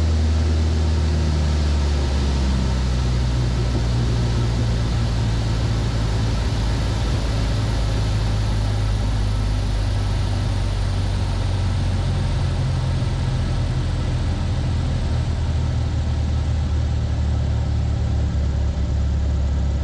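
Piston engine and propeller of a Van's RV-7 in flight, heard inside the cockpit with steady airflow hiss. The engine note drops about two seconds in, then holds steady at the lower pitch.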